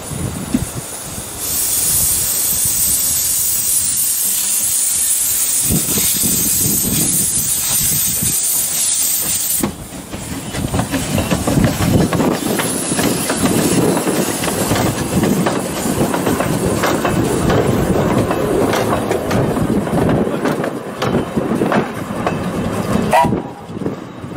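1896 Bagnall narrow gauge steam locomotive hissing steam loudly for about eight seconds. It then pulls its train away, chuffing, with the open wooden coaches rattling and clanking over the track. A brief high squeal comes near the end.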